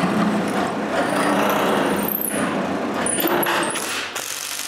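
Drill press running and boring into a block of glued-up maple. About three seconds in, it gives way to a cordless drill briefly driving a long screw, quieter than the drill press.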